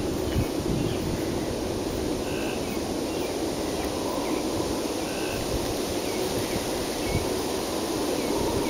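Steady low rumbling outdoor background noise, with a few faint, short high chirps scattered through it.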